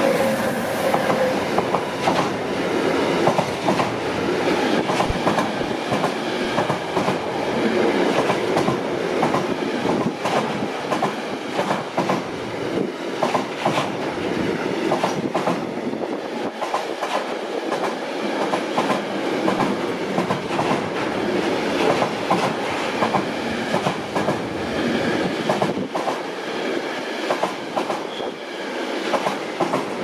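Container freight train passing close by at a level crossing: a steady rumble of wagons with a continuous run of wheel clacks over the rail joints.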